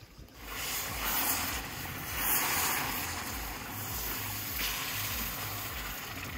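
Water splashing into a large aluminium pot as it is poured from a wooden bowl, then sloshing as it is stirred with a metal skimmer. The rushing starts about half a second in and eases off a little near the end.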